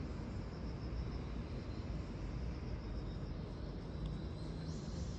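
Outdoor ambience: a steady low rumble and hiss, with faint, evenly repeating high-pitched insect chirping, typical of crickets.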